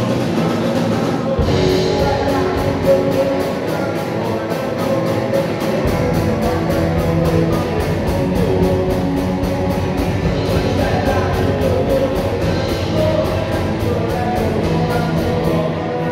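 Live rock band playing amplified electric guitars, bass guitar and drum kit in a reverberant sports hall. The low end comes in heavier about six seconds in.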